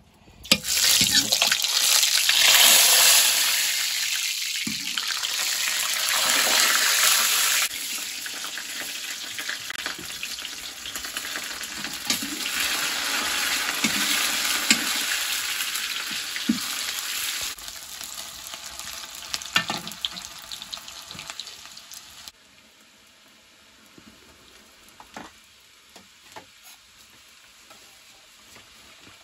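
Food sizzling loudly in hot oil in a metal wok, stirred with a spoon. The sizzle dies down in steps and is gone by about three quarters of the way through, leaving only a few utensil clicks.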